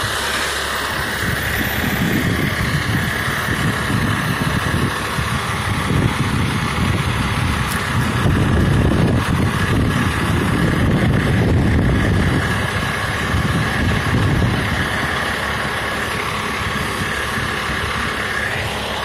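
Fire engine's diesel engine idling close by: a steady low rumble with a steady high-pitched hum over it, a little louder in the middle.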